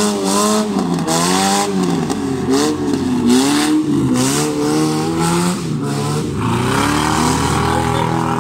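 Engines of battered demolition-race cars revving up and down as they drive on a dirt track, more than one engine heard at once. Repeated short bursts of rushing noise come through over the engines.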